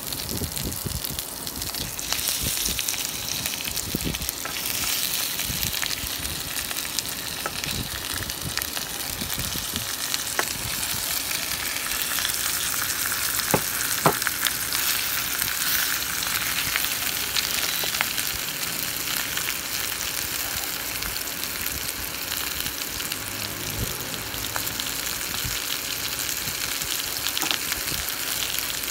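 Marinated chicken pieces sizzling and frying in hot oil in a stainless steel pan, the hiss thickening about two seconds in as the meat goes in. A few sharp knocks in between.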